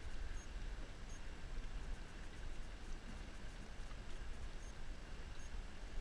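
Steady water noise of the river lapping and gurgling around a drifting boat's hull, with a few faint ticks.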